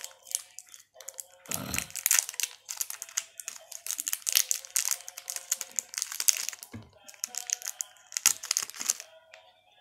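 Plastic chocolate-bar wrapper crinkling and rustling in hands, with a few dull knocks; it stops near the end.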